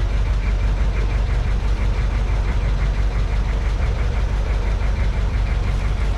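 Boat engine running steadily, a deep constant rumble with a fast, even knock.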